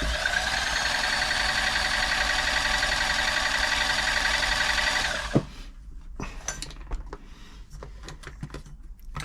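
Toyota 2640 sewing machine's electric motor running steadily for about five seconds, then stopping suddenly. Light clicks and taps of the machine being handled follow.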